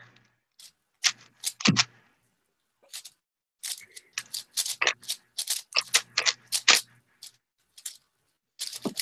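Plastic clicking and clacking of a 5x5 speed cube's layers being turned by hand, in quick uneven clicks with short pauses between bursts of turns.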